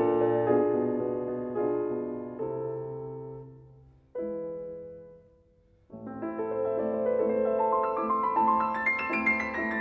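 Background piano music. A phrase fades out, a single chord rings and dies away, and after a short pause a rising run of notes begins about six seconds in.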